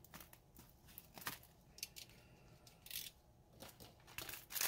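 Razor knife slicing through a brown ration pouch, with the pouch crinkling as it is handled: a run of short, faint scratchy cuts and rustles, loudest near the end.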